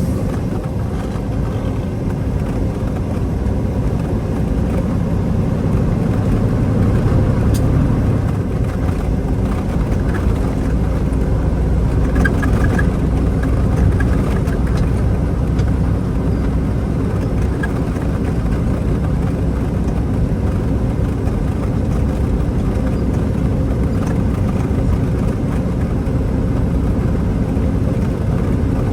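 Steady low engine and road noise of a truck under way, with little change throughout.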